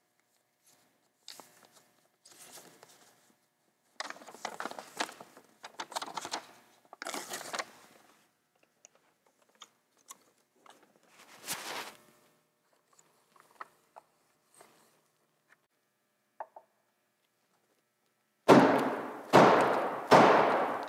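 Paper rustling and crinkling in several bursts as a paper sample catch tray is folded. Near the end come three loud hammer blows, under a second apart, driving a paint-sampling tool into a painted wooden window frame.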